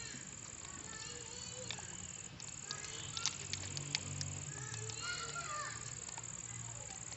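A steady high-pitched insect trill, pausing briefly about two seconds in, with scattered small clicks and a few short chirps over it.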